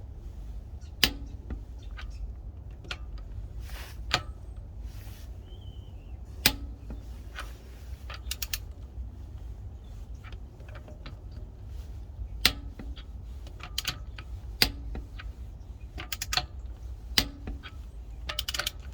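Click-type torque wrench working titanium wheel bolts: short runs of ratchet clicks and single sharp clicks every few seconds as each bolt is brought up to its set torque.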